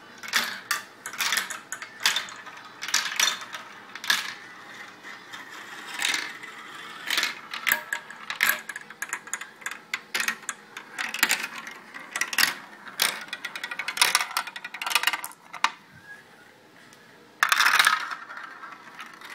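Marbles running through a marble run: an irregular string of sharp clicks and clacks as they hit the track and each other, with a denser clatter lasting about a second near the end.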